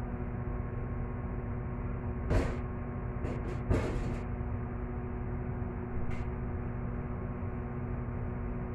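A steady mechanical hum with a few short scrapes and clicks of a metal spoon as minced-meat filling is packed into a bell pepper, the loudest about two and a half and four seconds in.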